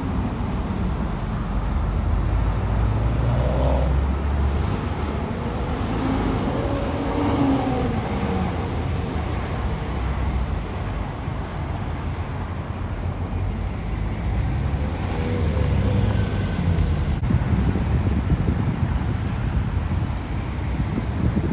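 Road traffic passing, with vehicle engines rising and falling in pitch as they go by over a steady low rumble.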